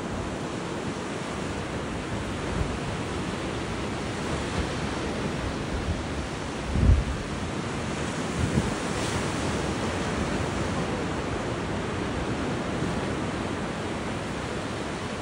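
Ocean surf breaking and washing up a sandy beach, a steady rushing wash. Wind buffets the microphone in low gusts, the strongest about seven seconds in and another a second and a half later.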